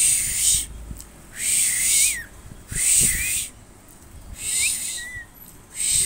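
Rose-ringed parakeet giving a series of raspy, breathy hissing calls, each under a second long and repeated about every second and a half, with a faint whistled pitch sliding up and down inside them.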